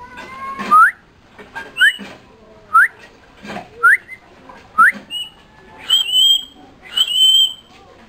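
Common myna whistling: five short rising whistles about a second apart, then longer, higher held whistles.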